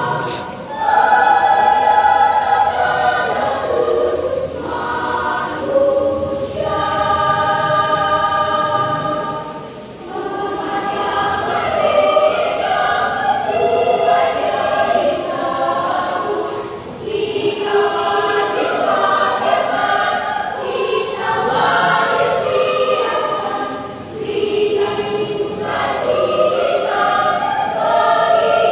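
Children's choir singing in parts: held chords in long phrases, with brief pauses between phrases.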